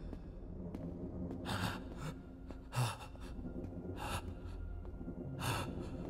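A character's nervous breathing: four breaths about a second and a half apart, over a low steady ambient drone.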